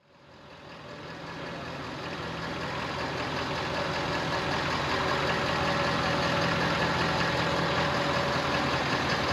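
Ford F-350 pickup's engine idling steadily while the truck is backed slowly under a truck camper; the sound fades in over the first few seconds.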